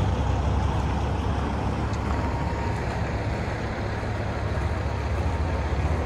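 Heavy truck's diesel engine idling nearby: a steady low rumble with no change in pitch.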